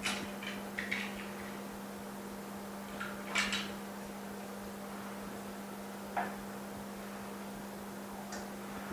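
A few light clicks and knocks of parts being handled and set into a small laminating machine, over a steady low hum.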